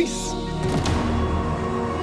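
Tense background music with steady held tones.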